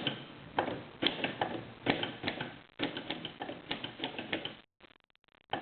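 Corona 4 portable typewriter being typed on: a run of uneven mechanical key and typebar clacks at typing pace, cutting off suddenly about a second before the end.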